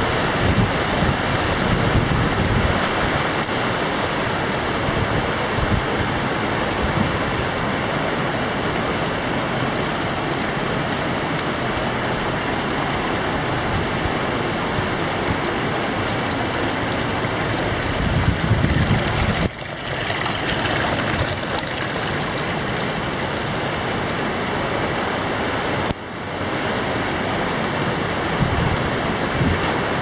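Fast mountain river rushing over rocks and boulders, a steady loud rush of water. The sound dips briefly twice, about two-thirds of the way in and again near the end.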